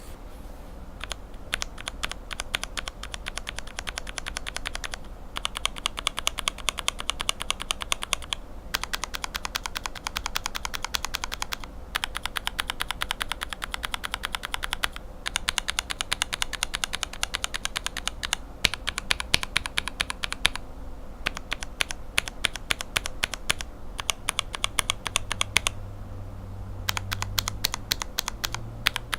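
Lubed linear mechanical keyboard switches being typed on rapidly: Cherry lower housings with Revo White linear stems and springs, lubed with Tribosys 3204, clacking as they bottom out and return. The typing comes in bursts of a few seconds with short pauses between them.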